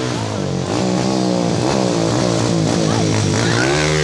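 Dirt bike engine revving as the bike rides up and passes close by, its pitch rising and falling with the throttle, louder from about a second in.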